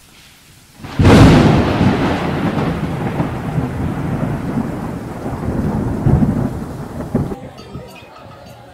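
Thunder sound effect: a sudden loud crack about a second in, then a long rolling rumble that slowly dies away, swelling twice more near the end.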